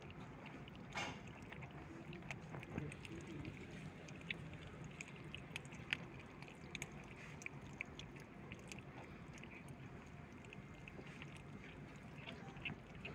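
Several kittens chewing and smacking as they eat raw meat together, with many small irregular wet clicks throughout.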